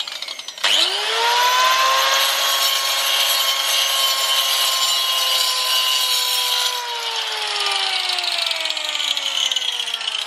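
Electric angle grinder with a cutting disc starting up about a second in and whining up to speed, then cutting into a clay brick slip with a gritty hiss for about six seconds. The grinder is then switched off, and its whine falls slowly as the disc spins down.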